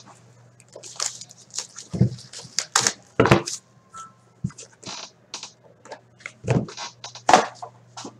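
Plastic shrink-wrap being torn and crinkled off a hockey card box, then the cardboard box set down and its lid opened: irregular crackles, rustles and taps over a steady low hum.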